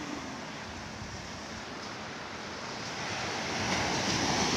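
Surf washing onto a sandy beach: small waves breaking at the shoreline as a steady rush of water, growing louder over the last second and a half as a wave breaks.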